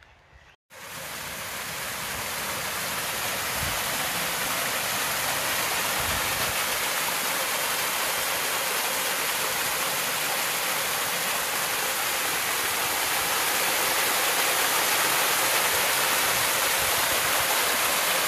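Water rushing down a narrow stone-stepped channel in a small cascade: a steady, loud, even rush that starts abruptly just under a second in.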